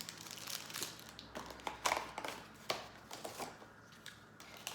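Small plastic LEGO pieces and their packaging being handled: scattered light clicks and taps with some crinkling, the sharpest clicks about two seconds in.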